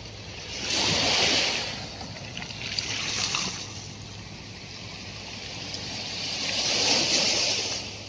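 Sea waves surging and breaking on the shore in rough monsoon seas: a rushing hiss that swells and fades three times, loudest about a second in and again near the end.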